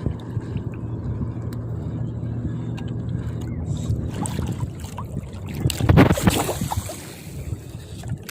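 A small boat's motor hums steadily and fades out about four seconds in. A brief loud rushing noise follows about six seconds in.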